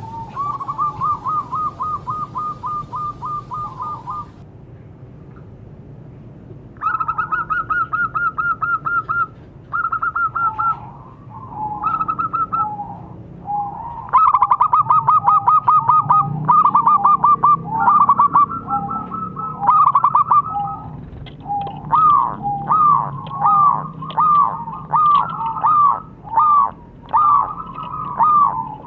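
Zebra dove (perkutut) cooing in long runs of quick, clipped notes. After the first run there is a pause of a couple of seconds. About two-thirds of the way through, the song changes to a slower series of separate notes that fall in pitch.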